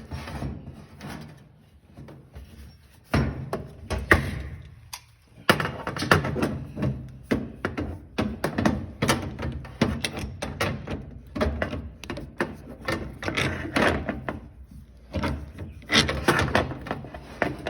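Irregular knocks, thuds and clatter of hand work on plumbing fittings, with a few sharp, loud strikes.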